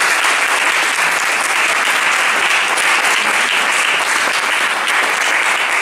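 Audience and panel applauding: dense, steady clapping.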